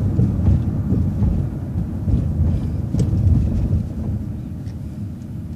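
Transit bus running along a city street, a steady low engine and road rumble heard from inside the cabin, with a single click about three seconds in and the rumble easing off near the end.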